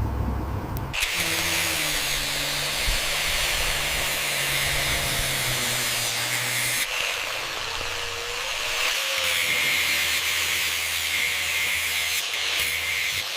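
A handheld power tool running steadily, starting about a second in, its pitch and load shifting partway through.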